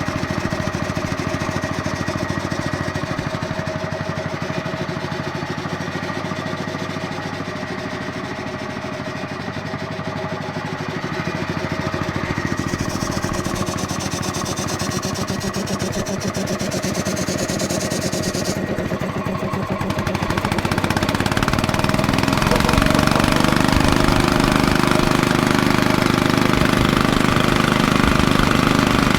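Diesel engine of a portable air compressor running with an even knocking beat, its injection pump head newly replaced. About two-thirds of the way in it gets louder and heavier and holds there.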